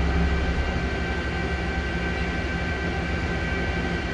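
Okuma MB-5000H horizontal machining center running under power: a steady mechanical hum with a constant high whine, the low hum shifting slightly about half a second in.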